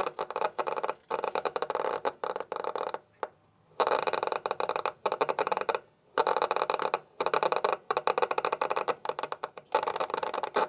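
Polaroid prints in a hand-cranked mutoscope flicking past one after another as the crank turns: a rapid, steady clatter of clicks. It stops for about half a second around three seconds in and briefly twice more around six and seven seconds.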